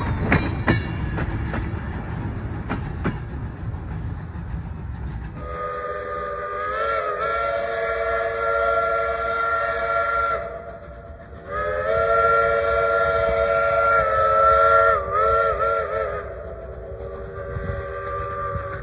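Train rolling with rumble and clicking wheels, then a locomotive's multi-note chime sounding two long blasts, the second wavering in pitch before it ends, and a fainter note near the end.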